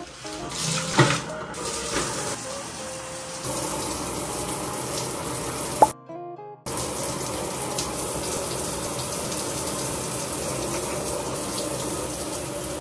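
Shower water spraying steadily, with a short break about six seconds in. A few sharp knocks sound in the first seconds, and another comes just before the break.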